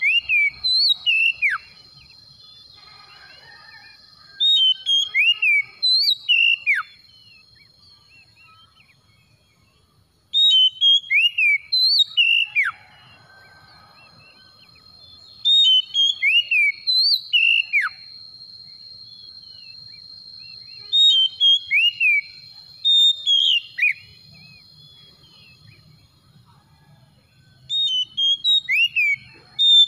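Oriental magpie-robin singing: phrases of loud, clear whistled notes with sharp downward-sweeping slurs, repeated about every five to six seconds.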